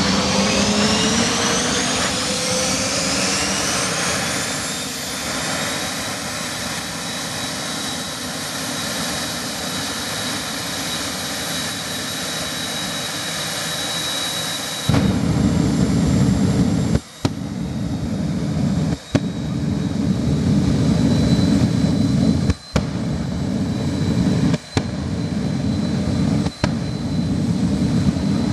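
Jet car's turbine engine spooling up with several rising whines that settle into a high steady whine. About halfway it suddenly changes to a much louder low rumble as the afterburner lights, shooting flame, and that rumble keeps on, briefly cutting out several times.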